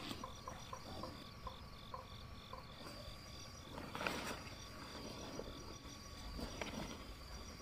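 Night insects calling: a steady high buzz with a regular pulsing chirp at about four pulses a second. A brief rustle comes about four seconds in as someone climbs into a tent.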